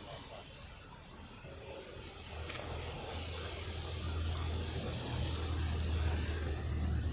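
A motor vehicle approaching along the street, its low engine rumble and tyre hiss growing gradually louder.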